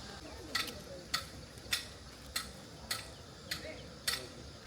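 Seven short, sharp clicks at an even pace, a little under two a second.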